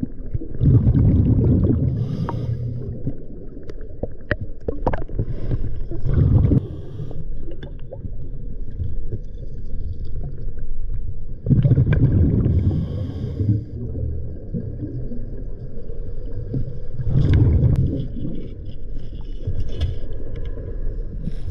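A scuba diver breathing through a regulator, heard underwater: a loud bubbling rush of exhaled air about every five to six seconds, with a low rumble between breaths. A few light clicks come around four to six seconds in.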